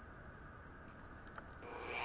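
Faint handling of a metal speed square against an aluminium angle, with a light click a little past halfway; near the end a Dremel rotary tool switches on with a faint whine that starts to build.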